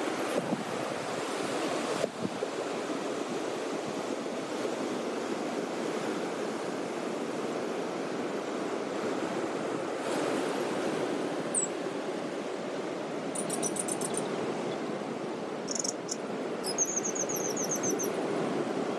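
Ocean surf breaking on a sandy beach: a steady rushing wash. In the second half come a few brief high-pitched chirps and jingles, the longest a quick repeated run near the end.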